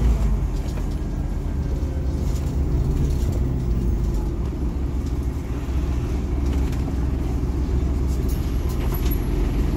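Scania NewOmnicity city bus heard from inside the passenger cabin while driving: a steady low engine drone and road rumble, with a few light clicks and rattles.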